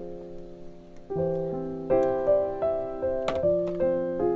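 Background piano music, a calm sequence of chords and notes that ring and fade.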